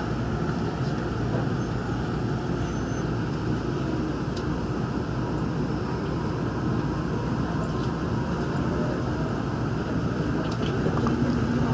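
Daegu Metro Line 3 straddle-type monorail train heard from inside the car, running out of an elevated station and gathering speed: a steady rumble of its rubber tyres on the guideway beam.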